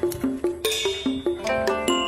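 Background instrumental music: a quick melody of plucked notes, about five a second.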